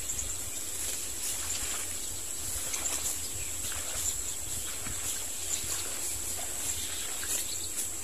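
Outdoor ambience: a steady high-pitched whine, a low rumble like wind on the microphone, and scattered faint short chirps or ticks.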